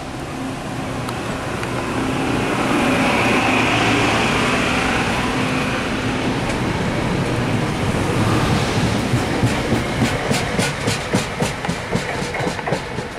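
Metro-North M2 electric multiple unit pulling out and gathering speed, its electric drive whining over the running noise. From about nine seconds in, its wheels click rhythmically over rail joints, about four clicks a second.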